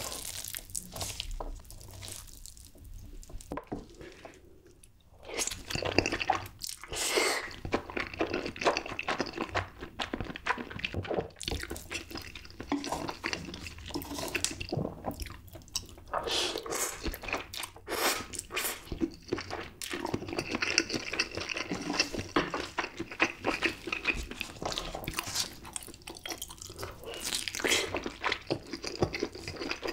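Close-miked eating sounds from spicy fire noodles coated in cheese sauce, stirred with chopsticks and chewed: dense wet, sticky clicks and squelches. There is a quieter pause about four to five seconds in.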